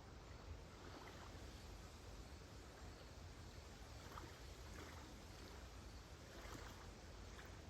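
Faint, gentle waves lapping on a calm lakeshore: a few soft, irregular splashes over a steady low rumble and hiss.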